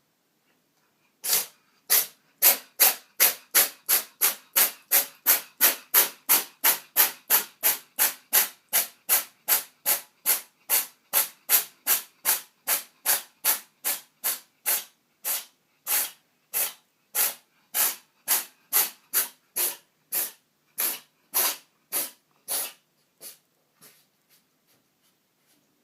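Cat sneezing over and over in a nonstop fit, dozens of sharp sneezes in a row. They come about two a second at first, then space out, and the last few are fainter.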